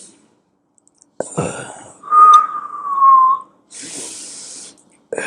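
A person breathing with a wheeze: a breath carries a high, whistling single tone for over a second that falls slightly in pitch. Noisy, hissing breaths come before and after it. It is the wheeze of air squeezing through narrowed airways, the breathing sound of asthma.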